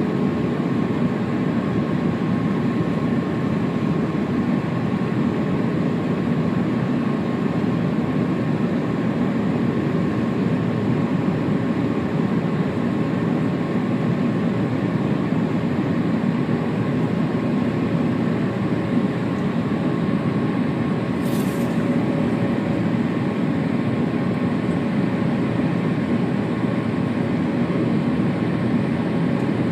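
Steady cabin noise of a JAL Airbus A350-900 with its Rolls-Royce Trent XWB engines running: an even rush of air and engine noise, with faint steady tones running through it. A single short tick about two-thirds of the way through.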